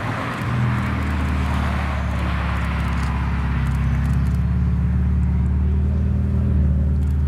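Supercar engine running at low, steady revs, a deep even drone with a slight change in pitch near the end.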